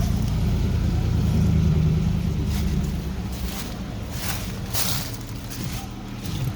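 A steady low motor hum, loudest in the first two seconds or so, with about five short hissing spurts in the middle.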